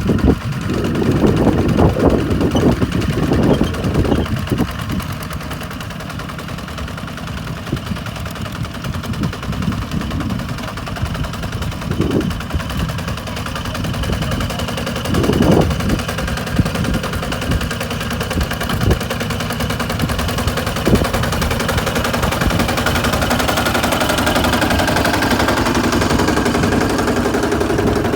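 Kubota RT140 single-cylinder diesel engine of a two-wheel rice-hauling tractor running hard, its exhaust firing in a rapid, loud stream of beats.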